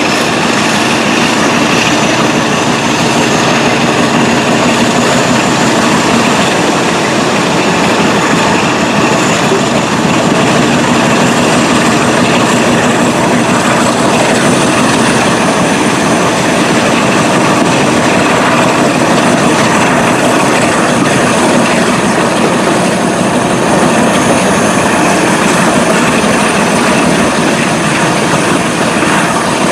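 Diesel locomotive engine working hard under full power at the head of a train, heard loud from an open carriage window, along with the wheels running on the rails. A thin high whine climbs slowly over the first few seconds and again a little before halfway.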